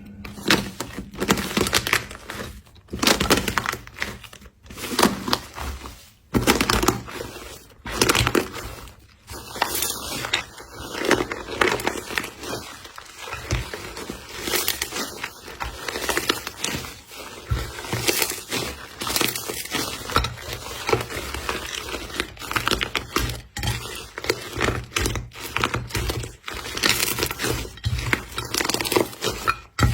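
Slime being squeezed and pressed by hand, giving an irregular, continuous run of short crackling, squishing noises.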